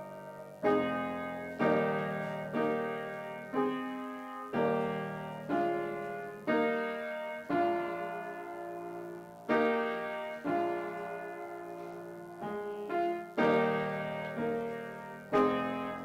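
Upright piano played solo: slow chords struck about once a second, each ringing on and fading before the next.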